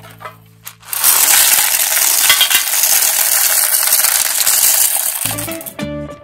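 M&M's candies pouring out of a tin into a plastic toy bus: a dense rattling clatter of hard-shelled candies for about four seconds. Guitar music comes in near the end.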